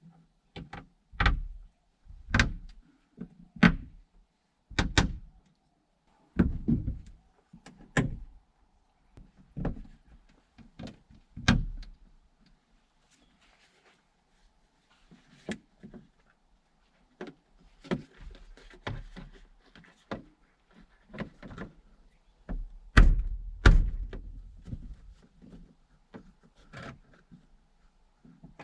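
Irregular knocks, thumps and rustling from hands and tools handling wiring and panels inside a van, about a dozen sharp knocks in the first half, then a busier stretch of knocks and rustling with the loudest thump a little past the middle.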